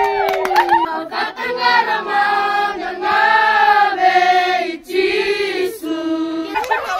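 A group of schoolchildren singing together as a choir, in long held notes with a short break between phrases.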